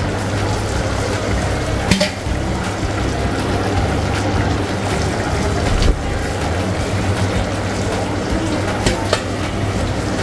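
Chicken cooking in a large aluminium pot on a gas stove: a steady bubbling hiss, broken by three sharp metal clinks of a steel spatula and lid against the pot, about two, six and nine seconds in.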